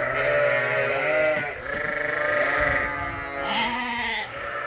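Several young sheep bleating at once in long overlapping calls of different pitches: weaned former bottle lambs crowding round and calling for a bottle.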